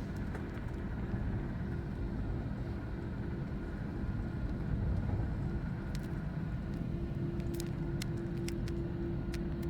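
Steady low rumble of an airliner heard from inside the passenger cabin, with a steady hum that settles in about seven seconds in and a few faint clicks.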